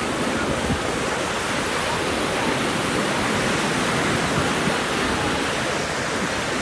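Ocean surf breaking and washing up the beach, a steady rush of noise.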